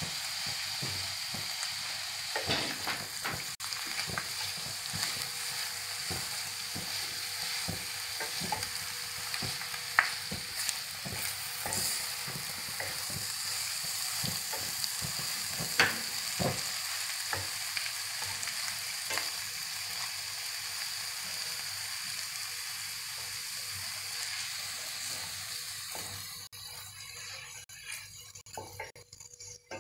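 Vermicelli and mushrooms sizzling in a pan of seasoned sauce on a gas burner, stirred with a wooden spoon that knocks now and then against the pan, as the vermicelli cooks and soaks up the liquid. The sizzle dies down near the end.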